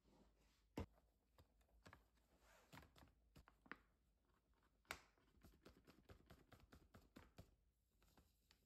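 Faint sounds of flour being poured into a stainless steel mixing bowl: a light rustle with a string of small clicks and taps, two of them sharper, about a second in and about five seconds in.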